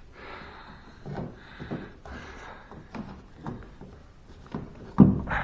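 Handling noise as a stainless steel SmartPlug shore power inlet and its wiring are fitted into a hole in a fiberglass hull: soft rubs and light knocks, then a louder thump about five seconds in.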